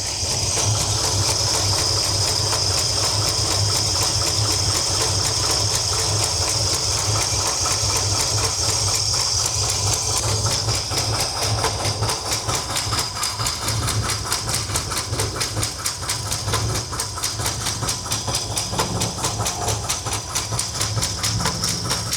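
Chevy 454 big-block V8 idling with a valve cover off: the exposed valvetrain ticks and clatters rapidly and evenly over a steady hiss. The owner traces the clanging to two valves with loose lash that need adjusting.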